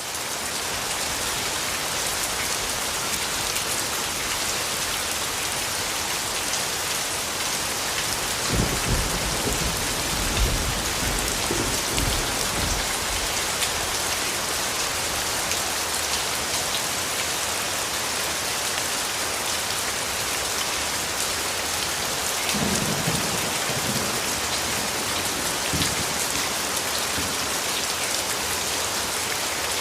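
Steady, heavy rain falling. Low rumbles of thunder come twice, about 9 seconds in and again about 23 seconds in.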